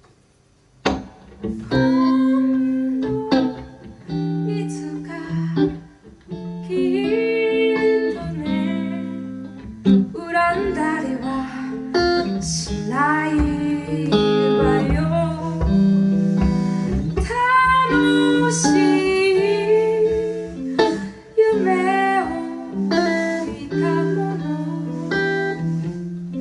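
A singer performing a slow ballad to guitar accompaniment, starting about a second in.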